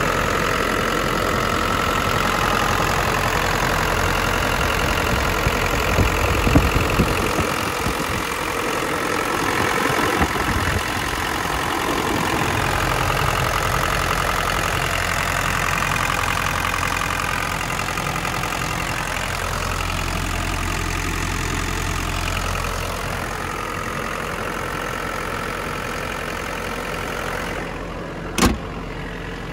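Isuzu 4JB1-T 2.8-litre turbo-diesel four-cylinder idling steadily. Near the end the hood is shut with a single sharp thump.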